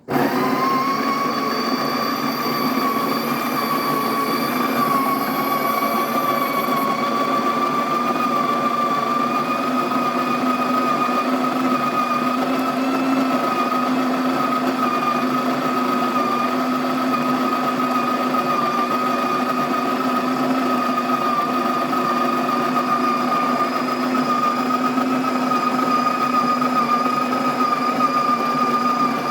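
Electric coffee bean grinder running loudly and steadily, its motor whining with a steady pitch, as it grinds a hopper full of coffee beans.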